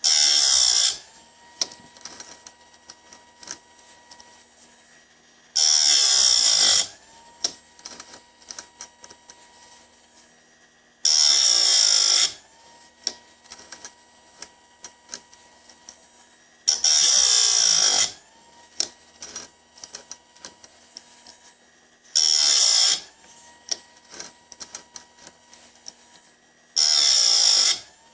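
Bench-mounted chainsaw chain sharpener grinding teeth: the spinning wheel is brought down onto the chain six times, about every five and a half seconds, each a harsh grind of about a second. Between the grinds the motor hums and there are small clicks as the chain is moved on to the next tooth.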